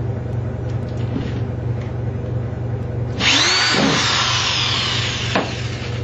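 Power drill with a driver bit screwing a screw through a bearing into wood. About three seconds in, the drill motor spins up and runs for about two seconds, its whine falling in pitch, then stops with a click.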